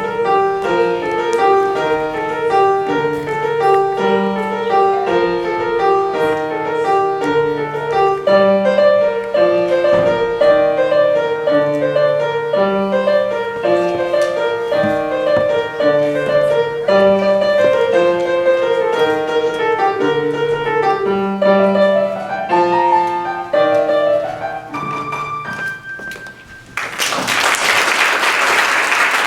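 A solo piano piece with a steady melody over a repeating bass line, closing with a few slow final notes. About two seconds later the audience breaks into applause.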